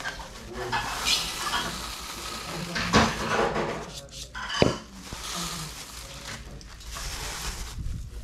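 Uncooked rice poured from a plastic bag into a pot, the grains hissing and rattling against the pot, with two sharp knocks about three and four and a half seconds in. Near the end a hand rakes through the rice in the pot.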